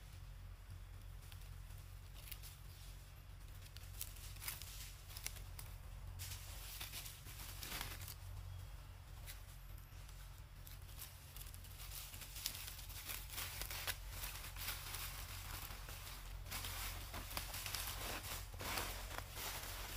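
Dry leaf litter and plastic rustling and crackling as long-tailed macaques move about and handle food, in scattered sharp crackles that grow busier in the second half, over a low steady rumble.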